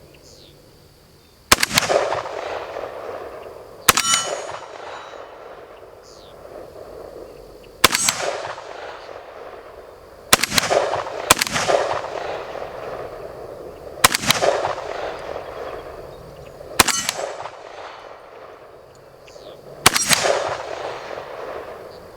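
Riley Defense AK-47 in 7.62x39mm fired in slow, aimed single shots, about eight sharp reports a few seconds apart, each trailing off in a ringing echo. The shooter is zeroing in a rifle whose sights still hit a little high and left.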